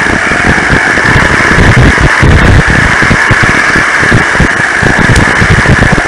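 Kyosho Blizzard SR radio-controlled snowcat driving through snow: a steady whine from its electric motor and gearbox over an uneven rattling rumble from its tracks, picked up close by the onboard camera.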